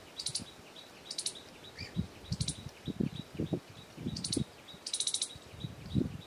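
Squirrel chattering: about five short, high, rapid-fire bursts spaced roughly a second apart. A faint regular ticking, about four a second, and scattered low thuds run underneath.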